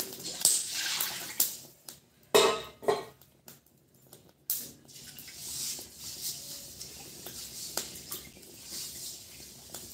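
Wood fire crackling in a clay cooking stove, with irregular clicks and clattering from handling at the stove and one loud clank about two and a half seconds in.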